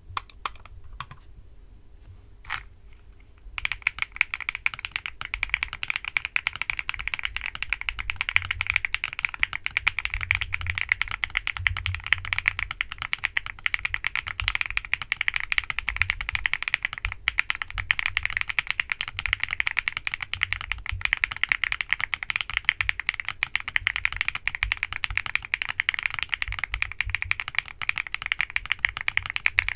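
Fast, continuous typing on a foam-modded Sugar65 mechanical keyboard with HMX Macaron switches and PBT double-shot ASA keycaps, starting about three and a half seconds in after a few single clicks.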